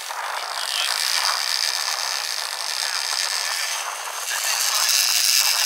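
Rushing wake water and wind noise behind a running boat, with the scraping rattle of a large trolling reel being cranked during a fish fight; it grows louder near the end.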